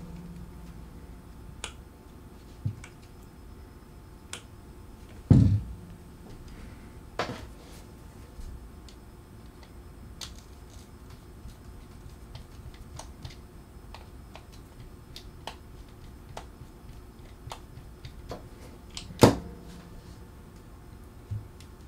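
Scattered small clicks and taps of the metal parts of a Penn Senator 113H reel being handled and its side-plate screws worked with a screwdriver, with two louder knocks, one about five seconds in and one near the end.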